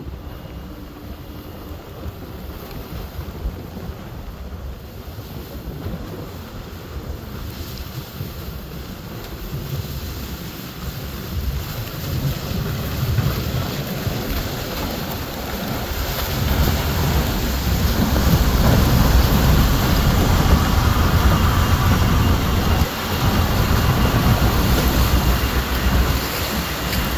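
Tugboat passing close, its engine rumble and churning water growing steadily louder to a peak about two-thirds of the way in, with wind buffeting the microphone.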